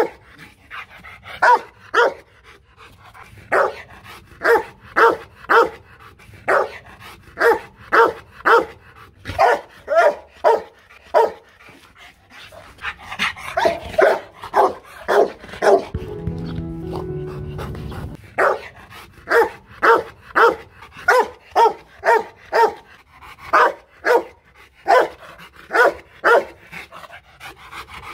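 Tethered Rottweiler barking over and over, short sharp barks in quick runs of several, about one to two a second, with a brief pause about two-thirds of the way through.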